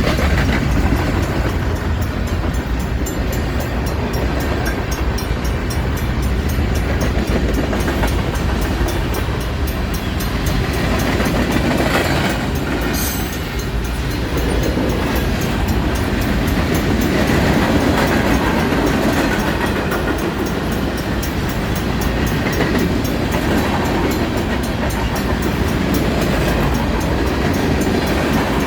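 Union Pacific freight train rolling steadily past at close range, its cars' wheels rumbling and clattering on the rails. A brief sharp metallic sound comes about thirteen seconds in.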